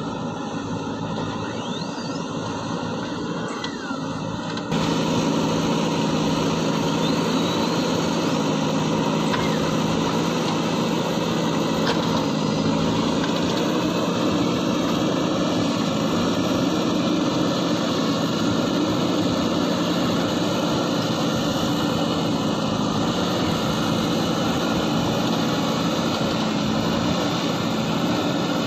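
JCB 3DX backhoe loader's diesel engine running steadily as the machine works, a continuous drone made of several steady tones. About five seconds in, the sound jumps suddenly louder and brighter, then holds steady.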